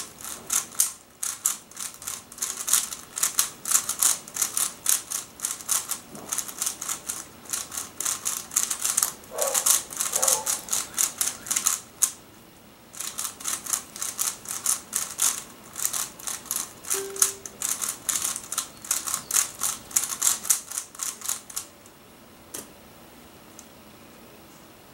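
Shengshou Aurora megaminx being scrambled: its plastic layers turned in fast runs of clicking, pausing briefly about halfway and stopping a few seconds before the end. A single click follows shortly after.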